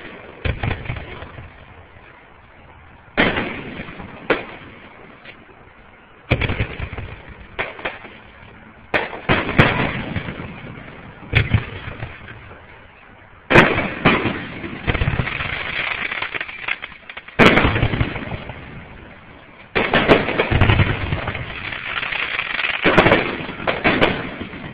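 Aerial fireworks shells bursting, about a dozen sharp booms each trailing off, coming closer together and running into longer stretches of continuous bursting about halfway through and again near the end.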